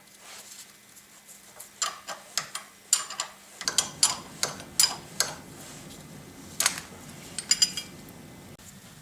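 Metal parts and tools of a Yates American B244 planer's drive train clinking and clanking as they are handled during disassembly. About a dozen sharp, ringing clinks start about two seconds in and stop near the end.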